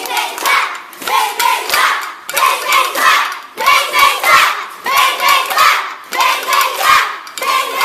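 A crowd of children shouting a rhythmic chant in unison, loud pulses a little under a second apart, with hand clapping.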